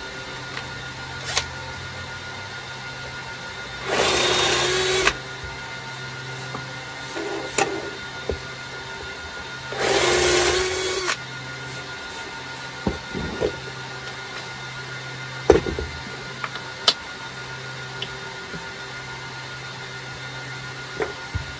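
Cordless drill running in two short bursts of about a second each, about four and ten seconds in, boring a hole into the wooden workbench top. Light knocks and clicks of handling come between and after the bursts.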